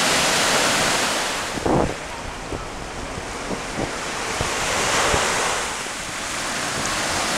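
Small waves breaking and washing up a beach, with wind buffeting the microphone. There is a single low thump about two seconds in.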